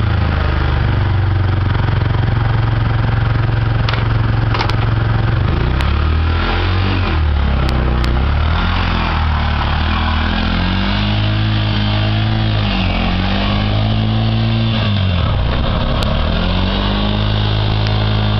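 A three-wheeled mototaxi's small engine running, steady for the first half, then rising and falling in pitch several times as the vehicle is driven off. A few brief clicks are heard along the way.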